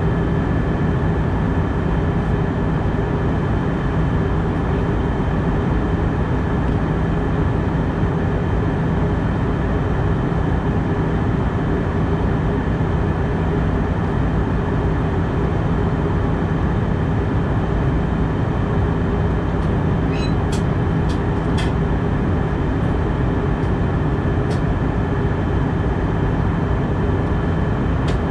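Steady cabin noise of an Airbus A319 in flight: a constant rushing drone of airflow and its CFM56 engines, with a few steady whining tones running through it. A few faint clicks come about two-thirds of the way in.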